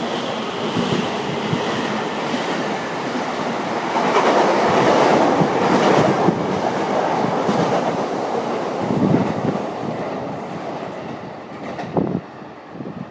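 Narita Express electric train (JR E259 series) passing through the station, its wheels clattering over the rail joints; the rumble builds to its loudest about four to seven seconds in and then fades.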